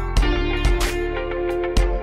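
Background music: guitar over a steady bass line and a drum beat.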